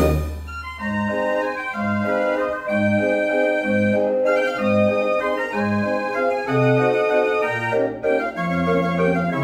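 Dutch street organ (draaiorgel) playing a tune on its pipes: a melody of held notes over a steady oom-pah bass of about one beat a second.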